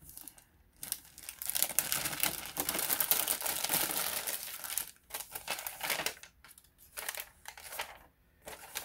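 Paper and packaging crinkling and rustling as hands rummage through an opened shipping box for the receipt: a dense run of crinkling for a few seconds, then shorter rustles.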